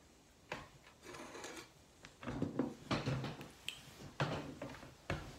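Faint handling noises: a glass jam jar set down on a wooden tabletop, then a row of knocks and rustling as a person pushes up from the table to stand.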